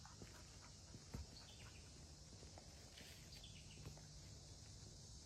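Near-silent trail ambience: a steady faint high hiss with scattered soft crunches and ticks, like footsteps on the path, and a few brief high bird chirps.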